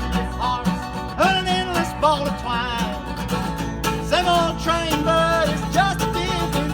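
Background music: a country song with plucked strings, a steady beat and a sliding melody line.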